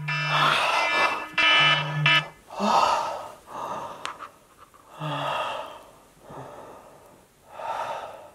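A man's heavy gasping and panting breaths, some of them voiced with a groan, about eight in all, growing quieter and slower as he calms.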